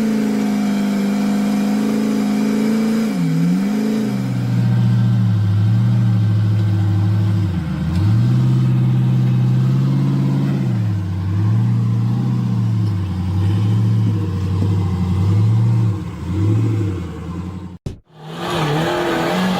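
Off-road vehicle engine held at steady revs for a few seconds, then revved up and down over and over, as the vehicle tries to drive free of being stuck. Near the end the sound cuts out briefly and a different engine takes over.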